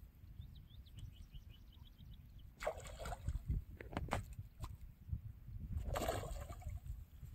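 A hooked rohu thrashing and splashing at the water surface while it is played on a long pole rod. There is a splash about two and a half seconds in and a bigger one about six seconds in, with a few short knocks between them, over a steady low rumble.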